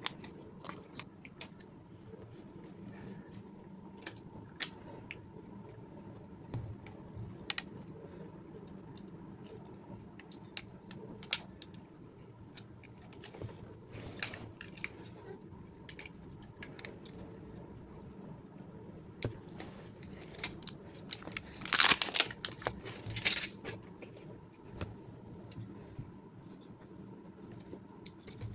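Packaging being handled and opened: crinkling and tearing with scattered small clicks and taps, and two louder tearing rustles about three-quarters of the way through.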